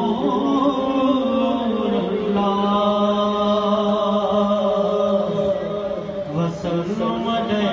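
A man reciting a naat, an Urdu devotional poem in praise of the Prophet, sung unaccompanied into a microphone in a chanting style, with long held notes, the longest in the middle.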